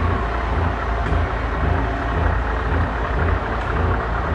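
Low, steady rumble of idling truck diesel engines.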